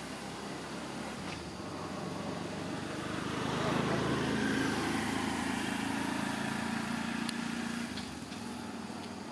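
A motor vehicle's engine passing by, growing louder about three seconds in and fading away after about eight seconds.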